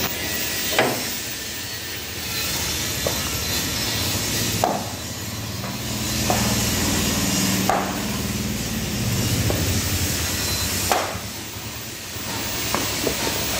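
Sledgehammer blows on a wooden plank held against the rotor shaft of a twin-lobe compressor, knocking the shaft out of the casing during dismantling. About seven irregular blows, a second or more apart, over a steady hiss.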